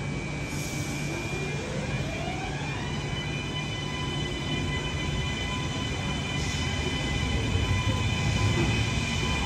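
A train moving through the station, with a low rumble and an electric whine that rises in pitch in the first few seconds, then holds as several steady high tones. The rumble grows slightly louder near the end.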